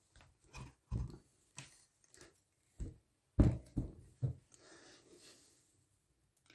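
Irregular knocks and clunks from a sewing machine being handled as its top cover is taken off, the loudest cluster a little past halfway through.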